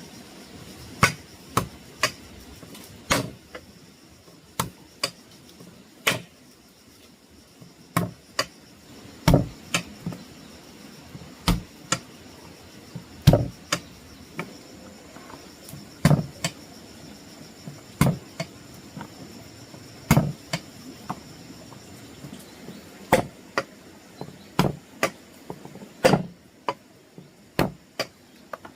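Irregular series of sharp chopping knocks, one or two a second with short pauses, over a steady high trill of crickets.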